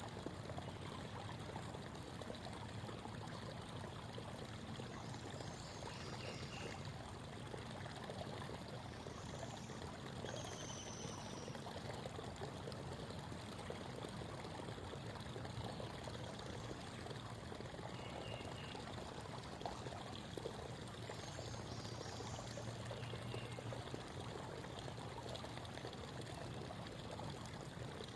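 Creek water babbling steadily over stones, with a few short, high bird calls now and then.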